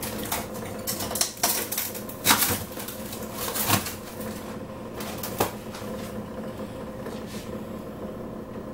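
Frozen food packages and boxes knocking, clicking and rustling as someone rummages through a refrigerator's top freezer compartment, in irregular sharp clacks, the loudest about two and three and a half seconds in, over a steady low hum.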